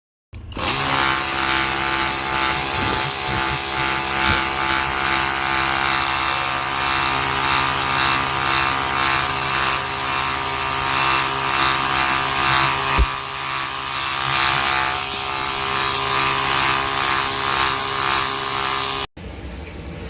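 Air conditioner unit running: a loud, steady whirring hum of fan and motor that starts about half a second in, with one sharp knock partway through, and cuts off abruptly near the end.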